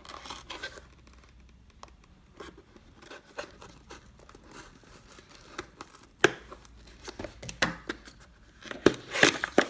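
Tablet packaging being handled and opened: scattered rustling, crinkling and tearing, with sharp clicks and taps, the loudest about six seconds in and another cluster near the end.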